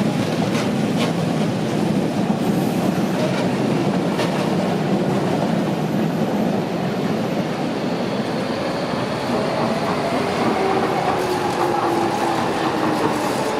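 A London Underground Jubilee line 1996-stock train runs out along the platform with a steady rumble, its wheels clicking over rail joints a few times early on. In the last few seconds a motor whine rises in pitch as train traction motors change speed.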